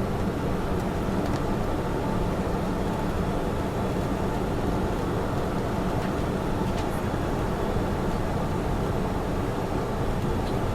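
Douglas DC-8 jet airliner, a steady deep rumble of its engines running at constant power, without rise or fall.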